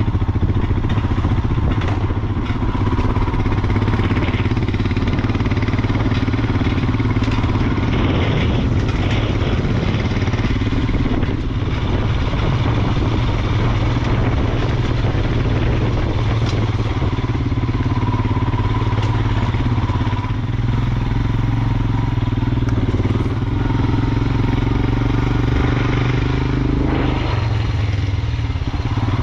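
Royal Enfield Himalayan's single-cylinder engine running steadily as the motorcycle is ridden along a rough dirt track, heard close from the bike.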